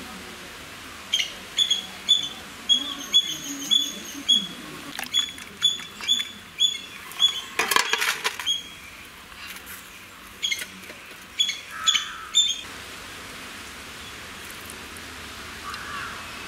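A bird repeating a short, high call note over and over, about two a second, stopping a few seconds before the end. About eight seconds in, a brief noisy burst cuts across the calls.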